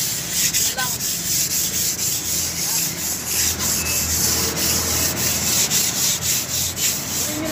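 Sandpaper rubbed by hand over a primed wall in quick, repeated back-and-forth strokes, a steady scratchy hiss: the primer coat being sanded to knock off specks and dirt before the colour coat.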